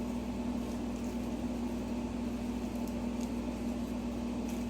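A steady low hum holding one constant tone, with a few faint light clicks about three seconds in and again near the end.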